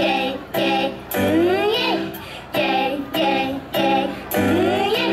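Young girls of an idol unit singing into handheld microphones over pop music played through a stage PA. The sung phrases come in short bursts, two of them with rising sung swoops.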